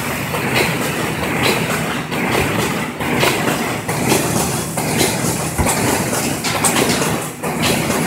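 Automatic corrugated-cardboard partition assembler machine running: a steady mechanical din with frequent irregular clacks and knocks.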